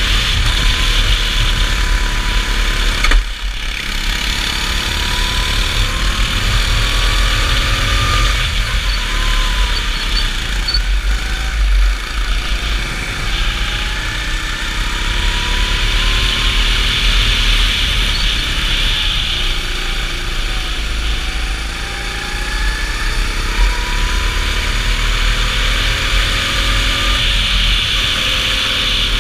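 Go-kart engine running at speed, its pitch rising and falling as the kart brakes and accelerates through the corners, under a heavy rumble of wind on the onboard camera's microphone. A single sharp knock comes about three seconds in.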